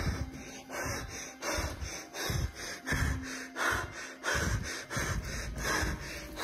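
A frightened man's heavy, rapid breathing close to the microphone, about one to two breaths a second.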